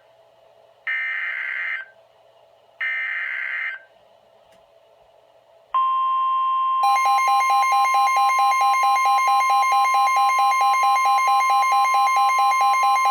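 NOAA Weather Radio Emergency Alert System (SAME) header: two short bursts of screeching digital data, each about a second long and a second apart, then about two seconds later the steady 1050 Hz warning alarm tone starts. About a second after that, the weather radio's own alarm joins with a rapid pulsing beep of about four a second. Together they signal that a warning has just been issued for the listening area.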